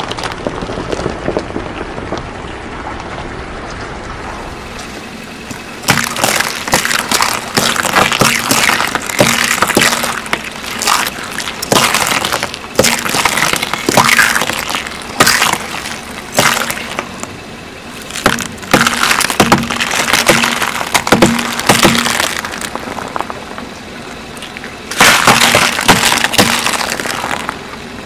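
Eggshells cracking and crunching under a car tyre, a long series of sharp crackling bursts that starts about six seconds in after a quieter opening, with a loud run of crunching near the end.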